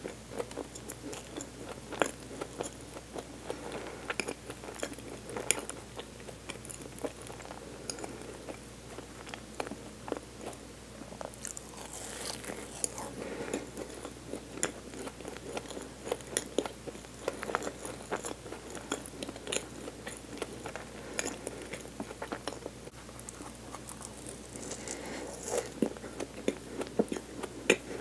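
Close-miked chewing of a Hostess Snoball, a marshmallow-and-coconut-covered chocolate cake. The chewing is soft and sticky, with many small irregular clicks.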